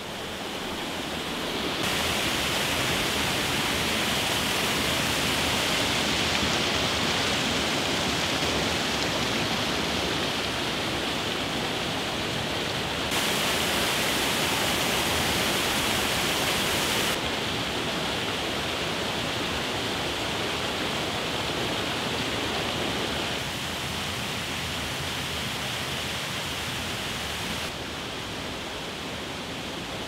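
Waterfall rushing steadily, with cascades of water splashing onto rocks. The level changes abruptly up or down several times.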